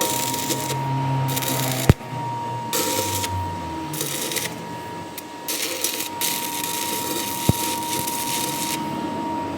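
Metalworking machine in a workshop, running with a steady whine and intermittent hissing bouts of cutting noise that start and stop every second or so, with two sharp clicks.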